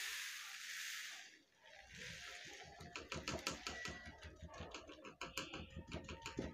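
A sheet of card being handled and tapped to shake off loose rangoli powder: a rustling hiss for about the first second, then a quick, irregular run of light taps and knocks.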